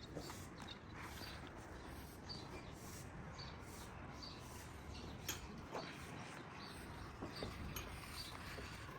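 Faint outdoor background with scattered short bird chirps and a few light clicks.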